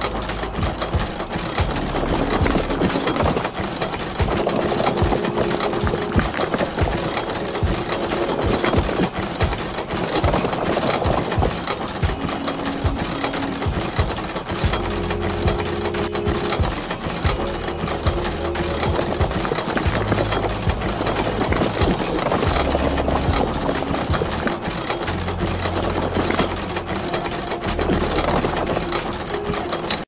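Small electric motor driving a miniature shaker sieve through a gear and crank rod: a fast, continuous mechanical rattle as the mesh tray shakes rice grain. It stops abruptly at the very end when the motor is switched off.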